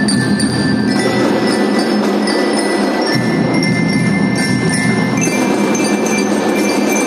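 Children's marching drum band playing, led by marching glockenspiels (bell lyres) ringing out a melody of sustained, bright notes over the band's drums.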